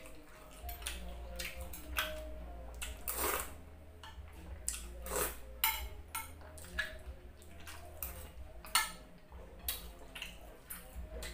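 A metal fork clinking and scraping against a glass serving dish and plate, in irregular sharp clicks.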